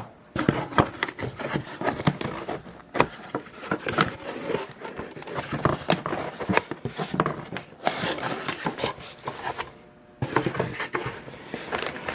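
Camcorder packaging being handled and rummaged through: crinkling plastic bags and cardboard, with many small scrapes, clicks and knocks. There are short pauses just after the start and again near the end.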